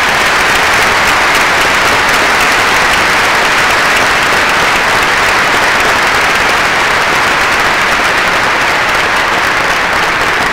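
A large audience applauding steadily, many hands clapping together in a dense, even wash of sound.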